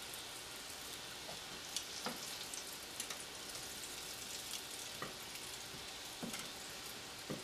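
Egg-battered morel mushrooms shallow-frying in hot oil in a skillet: a steady sizzle with a few sharp ticks and pops scattered through it.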